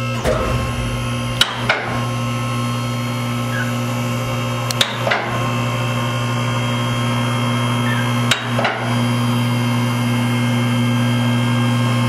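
Two-post car lift's electric hydraulic pump motor running with a steady hum as it raises the car. Pairs of sharp clicks come about every three and a half seconds.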